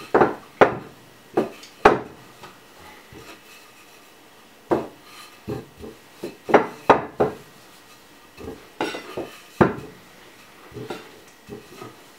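Wooden rolling pin rolling roti dough on a countertop: irregular sharp wooden knocks, some in quick runs of two or three, with a quieter stretch about three seconds in.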